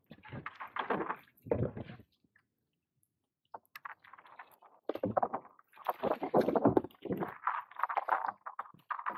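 Kayak paddle strokes: the blade dipping and pulling through the water in repeated irregular splashes and sloshes. The sound drops out completely for about a second and a half around two seconds in, then the splashing comes back more strongly.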